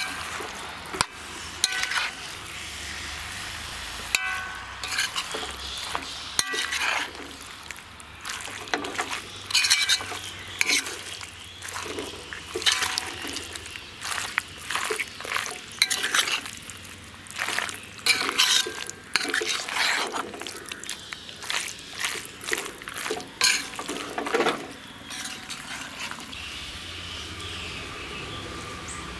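A steel ladle stirs chunks of citron (big lemon) pickle through thick spiced oil in an iron kadai. Short strokes come again and again, with the ladle scraping and clinking against the pan.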